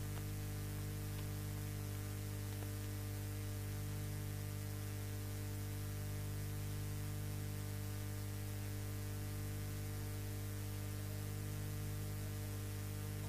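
Steady electrical mains hum with a layer of hiss on an old sermon recording, its buzz strongest around 100 Hz with several higher overtones, unchanging throughout.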